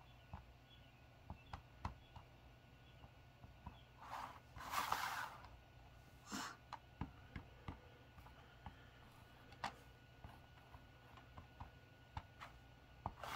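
Faint scattered clicks and taps of a plastic glue bottle's nozzle being dabbed along the small tabs of a thin laser-cut frame. A hand brushes and slides over the cutting mat, with the loudest rustle about four seconds in and shorter ones later.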